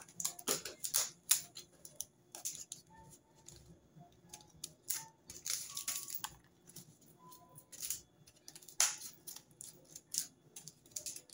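Scissors trimming the edges of glued cardboard pieces: irregular snips and clicks, with a longer crunching cut about six seconds in.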